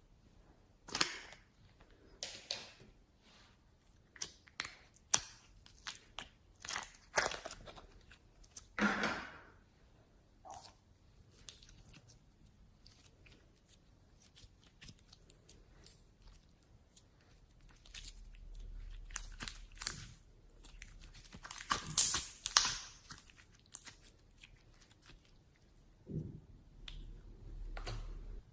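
Slime being handled by hand: irregular short crackles and pops, coming in clusters and loudest about twenty-two seconds in.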